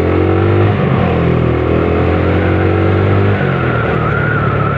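Motorcycle engine running while under way, its pitch climbing over the first second as it accelerates and then settling, with a change in the engine note a little after three seconds. Road noise runs under it.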